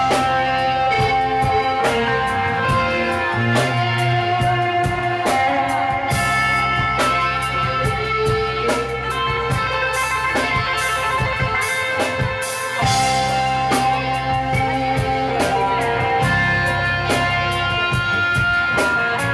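Live rock band playing an instrumental stretch: electric guitar lines over bass and a drum kit, with regular drum and cymbal hits.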